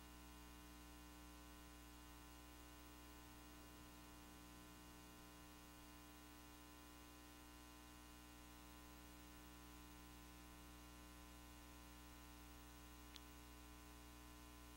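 Near silence: a steady electrical hum and hiss in the recording feed, with one faint click about 13 seconds in.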